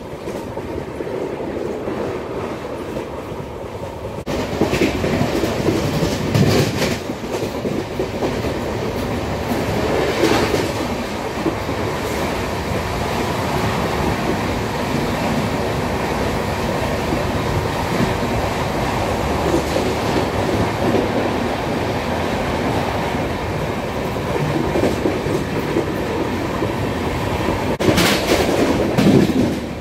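Passenger train coach running at speed, heard through its open door: wheels rumbling and clattering steadily over the rails, with several louder bursts of clatter as they cross joints and points.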